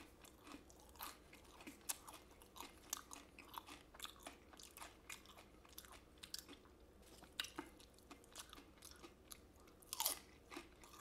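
Close-miked chewing and mouth sounds from eating Chinese takeout: soft, irregular crunchy clicks, with a louder bite about ten seconds in.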